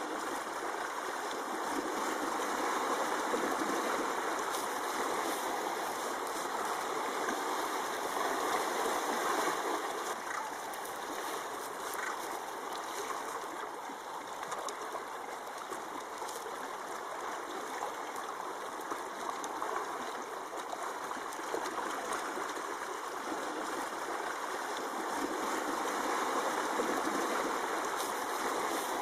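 A steady rushing, stream-like noise that slowly swells and eases, with faint crackles running through it.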